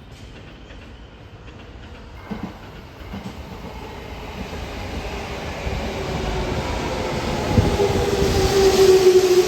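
JR East 209-500 series electric train running into the station, growing steadily louder as it approaches and brakes, with a few wheel knocks over rail joints. From about halfway in, a steady tone sounds over the rumble and slips slightly lower in pitch near the end.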